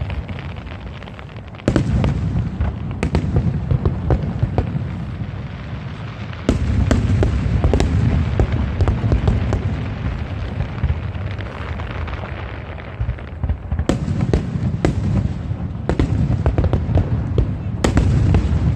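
Aerial fireworks display: a continuous barrage of booms with many sharp cracks and crackles. It gets louder about two seconds in and again about six seconds in.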